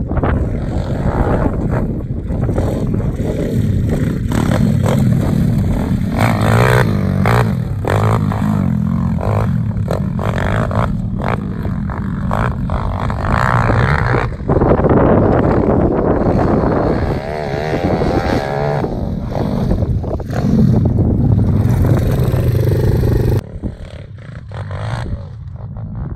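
Welsh Pit Bike 190cc four-stroke pit bike engine running hard, the revs rising and falling as it is ridden along a dirt track. The engine sound drops away sharply near the end.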